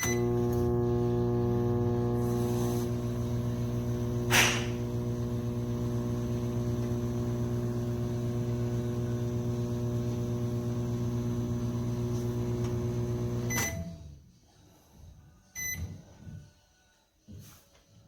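Black+Decker EM720CB7 700-watt microwave oven running: a steady mains hum from its transformer and fan, with a single loud click about four seconds in. It shuts off with a click about thirteen seconds in, followed by a couple of short beeps.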